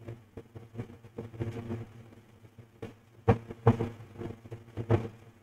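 Clicks and taps from a computer keyboard and mouse being worked while code is edited, with a cluster of sharper, louder clicks in the second half, over a faint low hum.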